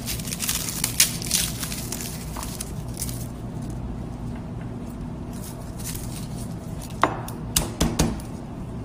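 A garlic bulb being broken apart by hand on a wooden cutting board, with sharp cracks and snaps in the first second or so. Then, about seven seconds in, a few sharp smacks as a broad knife blade is brought down flat on the cloves to crush them.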